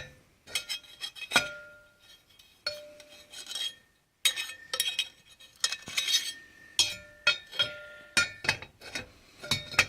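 Steel parts of a 700R4 transmission input drum clinking and scraping against each other as the piston shell is worked into the drum, many sharp metallic clicks, some ringing briefly.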